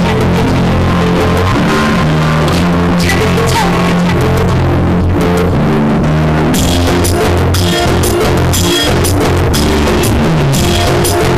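Loud rock music with a driving drum kit, bass and guitar; the cymbal strokes grow busier about six and a half seconds in.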